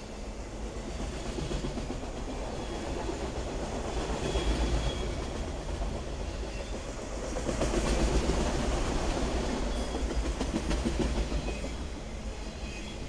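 Enclosed autorack freight cars rolling past at speed: a steady rumble of steel wheels on rail with clickety-clack at the rail joints, getting louder about four seconds in and again around eight seconds.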